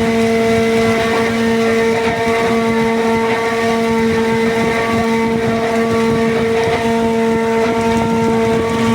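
Fishing boat's engine running steadily at a constant pitch.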